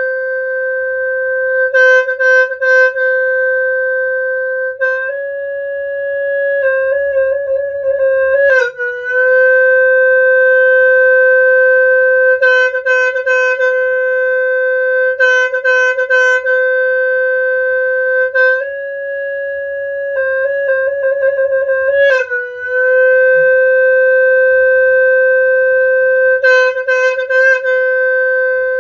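Khmer snaeng, a free-reed buffalo-horn trumpet, sounding one long held reedy note. It steps up a little twice, each time breaking into a fluttering trill before falling back to the lower note.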